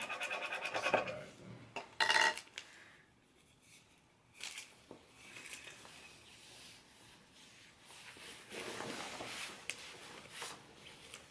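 Hands rubbing and handling a stainless-steel tumbler: a second of rapid scraping at the start, a short ringing clink about two seconds in, then fainter rubbing.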